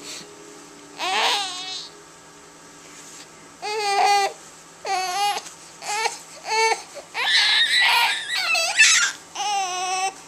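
Infant crying and fussing: one short wail about a second in, then a run of brief cries from about four seconds on, loudest and most continuous near the end.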